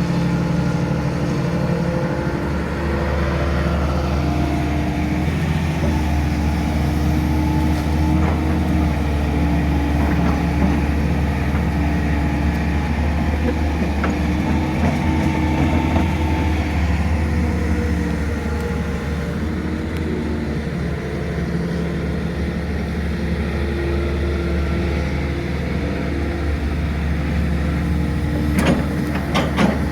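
Excavator's diesel engine running steadily under working load, its hum shifting up and down in pitch as the machine moves. A few sharp knocks near the end.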